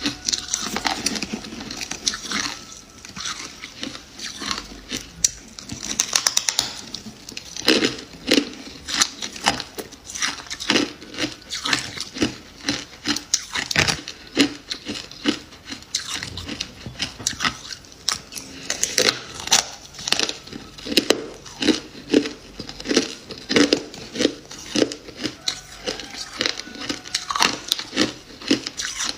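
Freezer frost being bitten and chewed close to the microphone: a long run of sharp, crisp crunches, coming in quick bunches with short pauses between.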